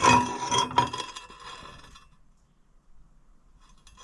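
Quarter-inch steel plate clanking on metal: two sharp strikes less than a second apart, then ringing that fades over about two seconds, with a faint clink near the end.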